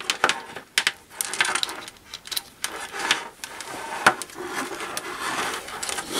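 Handling noise as test-lead probes and their cables are plugged into a Mustool MT92 handheld multimeter's input sockets and the meter is moved on a wooden desk: an irregular run of plastic clicks, knocks and rubbing of the leads.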